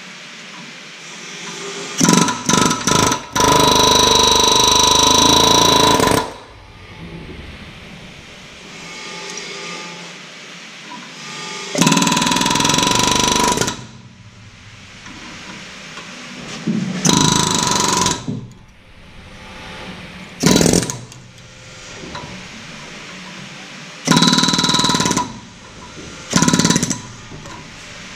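Pneumatic air hammer hammering a steel suspension arm clamped in a bench vise, in loud bursts: a few quick stabs, then half a dozen bursts of one to three seconds each with quieter pauses between.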